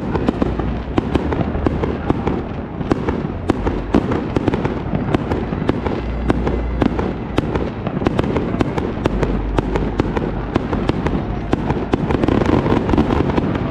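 Aerial fireworks shells bursting in a continuous display: a steady stream of sharp cracks and pops, several a second, over a low rumble.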